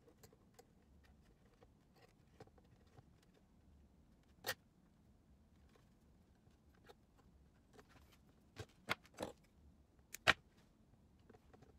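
Scattered small plastic clicks and knocks from handling ink cartridges and a plastic cable-chain tube guide. There is a sharper click about four and a half seconds in and a cluster of them from about eight and a half to ten seconds in, the loudest near the end.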